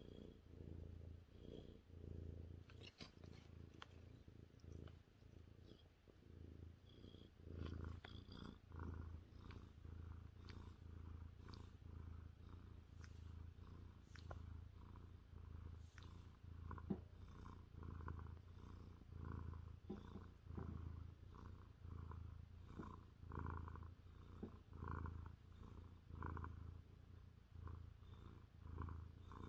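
A 30-pound Maine Coon cat purring with a microphone between his paws: a deep, low purr that swells and eases with each breath, every second or so. It is the purr of a contented cat having his ears rubbed.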